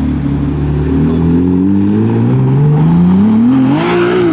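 Ferrari 296 GTB's twin-turbo V6 hybrid engine pulling away under acceleration, its note climbing steadily in pitch for a couple of seconds, with a brief harsh rasp near the end.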